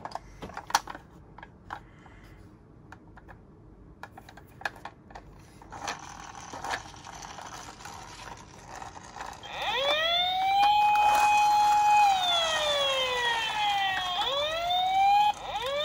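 Light clicks and taps for several seconds, then an electronic toy emergency-vehicle siren starts: a wail that rises, holds, falls slowly, then breaks into quick rising whoops near the end.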